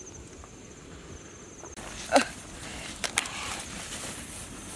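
Insects chirping in a steady pulsing rhythm, which stops abruptly a little under two seconds in. Then a short, loud cry slides down in pitch, followed by a few sharp clicks and light rustling.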